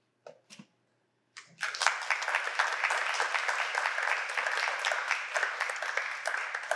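A small audience applauding: dense clapping starts about a second and a half in and dies away near the end, after a couple of faint knocks.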